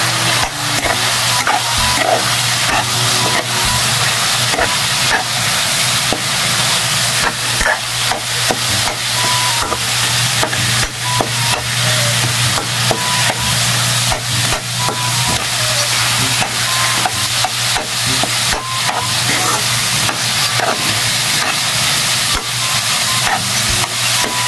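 Ground meat and diced vegetables sizzling as they stir-fry in a metal wok. A steel spatula stirs and scrapes through them, clinking against the pan over and over.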